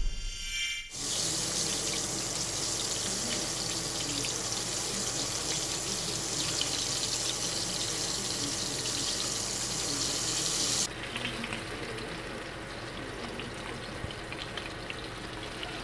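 Oil sizzling steadily in a cast iron skillet as Spanish mackerel tails fry in it, after a short intro sound effect at the very start. About eleven seconds in the sizzle turns duller and quieter.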